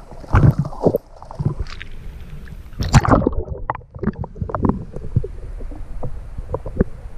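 Splashing and churning water as a person plunges into a shallow creek, with the loudest splash about three seconds in. Then the muffled underwater sound of the submerged microphone: a low rumble with scattered small clicks.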